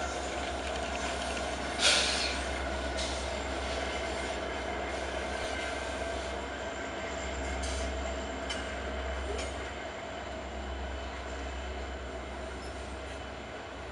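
A freight train's diesel locomotives passing close by: a steady low engine rumble with the noise of steel wheels rolling on the rails. There is one loud sharp clack about two seconds in and a few fainter clicks later. Near the end the locomotives give way to loaded coal hopper cars and the sound drops a little.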